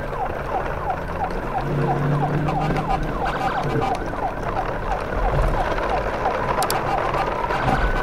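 A siren sounding in a fast yelp pattern, about three short falling whoops a second, over a steady low rumble.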